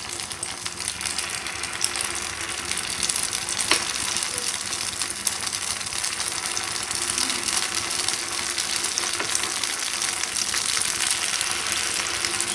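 Rice batter frying in hot oil in the cups of a paniyaram pan: a steady crackling sizzle that grows a little louder over the first few seconds as more batter is ladled in. A single sharp click comes about four seconds in.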